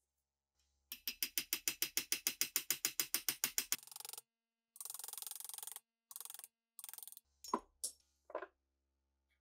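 Small hammer tapping a steel punch against a rusty steel rifle part clamped in a vise: a fast, even run of light metal taps, about ten a second for nearly three seconds. Then several short rasping bursts, and near the end three separate, louder hammer knocks.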